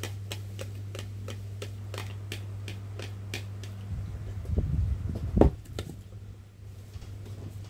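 Mouth and drinking clicks, about three a second, as a man drinks from a clear plastic tub over the steady hum of an electric fan. Then the plastic tub and spoon are handled with a few low bumps and one sharp knock about five and a half seconds in.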